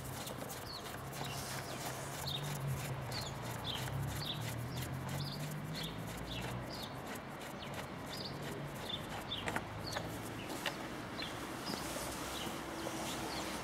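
Small birds chirping over and over, about two short high chirps a second, over a low steady hum. Two light clicks come a little after halfway.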